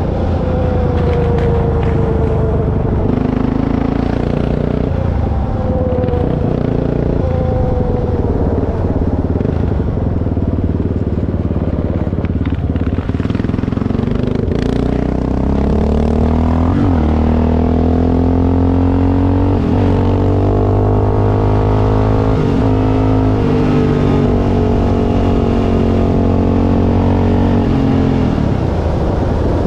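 Yamaha Raptor 660 ATV's single-cylinder four-stroke engine running under way. The engine note falls in the first part, then from about halfway through climbs again in several steps with short dips between them, typical of shifting up through the gears.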